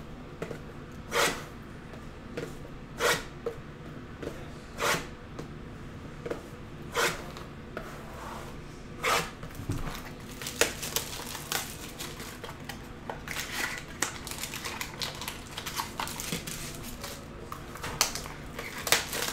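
Sealed trading-card boxes being handled on a table: sharp knocks about two seconds apart as boxes are set down. From about halfway through come denser crinkling and rustling of shrink wrap, cardboard and foil packs as a box is opened.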